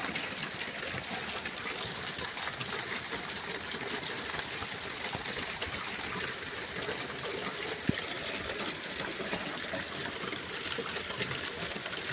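Heavy rain falling steadily: an even hiss with scattered sharp ticks of drops striking close to the phone's microphone.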